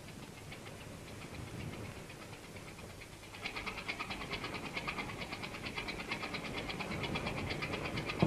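A motor running with a rapid, even clattering beat, faint at first and much louder from about three seconds in, over a low rumble.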